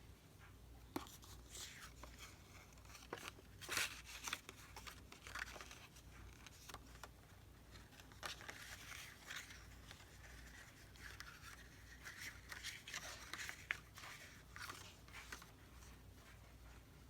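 Faint paper rustling, scraping and small taps as paper tags are handled and their edges rubbed against an ink pad, with a few sharper clicks scattered through.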